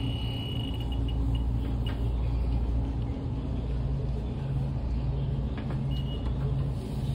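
Steady low hum and rumble of a running air-conditioning unit, pulsing slightly. A brief high beep sounds about six seconds in.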